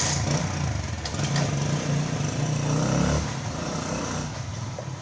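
A motor vehicle's engine running close by, a low rumble that is loudest for about the first three seconds and then dies down.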